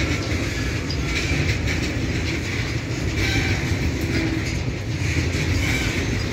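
BTPN petroleum tank wagons of a freight train rolling past on the rails: a steady low rumble of wheels and running gear, with a higher squeal that comes and goes.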